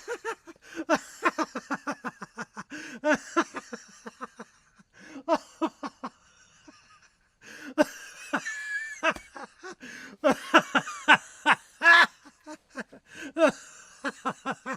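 Laughter coming in several fits of quick, short pulses, with brief pauses between the fits.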